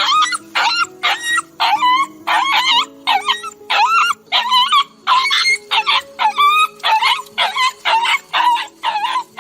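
A dog crying in pain: a rapid series of short, high-pitched yelping cries, about two a second, each bending in pitch.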